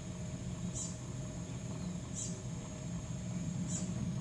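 Woodland ambience: a short high chirp repeating about every second and a half over a steady high-pitched hum and a low rumble.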